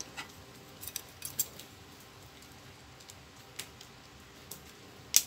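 A few small, sparse metallic clicks and light scrapes as a thin metal blade works the spring and carbon brush holder inside a Bosch GWS 900-100S angle grinder, seating a new carbon brush; the sharpest click comes near the end.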